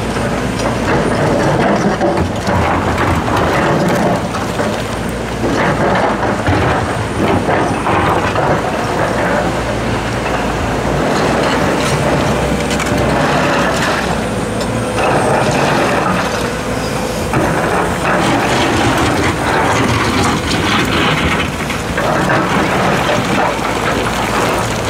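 Hitachi Zaxis 135US excavator's diesel engine running under load while its steel bucket digs into blasted rock, with rocks scraping, clattering and crunching against the bucket and the pile throughout.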